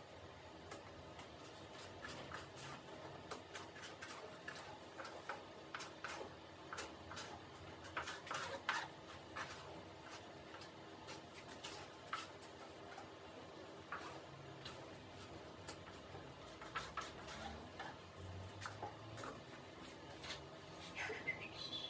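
Faint, irregular clicks and taps of gloved hands working fiberglass cloth and epoxy on a wing's leading edge, over a low steady hum. A short run of high, falling chirps comes near the end.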